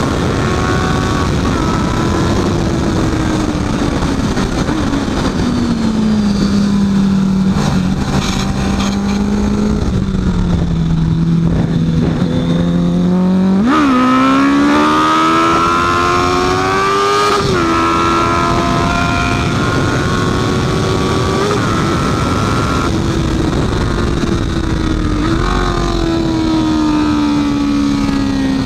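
Honda CB650F's inline-four engine running hard on a race track. Its pitch falls for several seconds as the bike slows, then climbs sharply about halfway through with gear changes a few seconds later, and rises and falls again near the end, over steady rushing noise.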